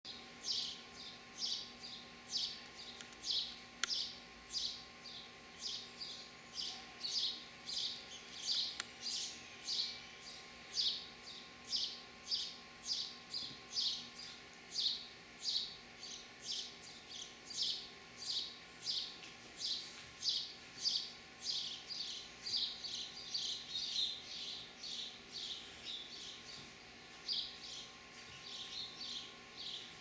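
House sparrow chirping: a long run of short cheeps, about two a second, kept up without a break.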